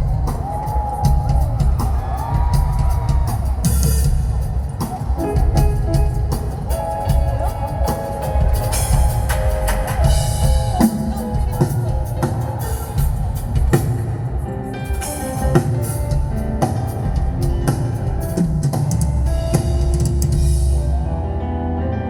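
Rock band playing live over a festival PA during a sound check: a full drum kit with kick and snare, bass, and sustained melodic instrument lines. The cymbals drop out near the end.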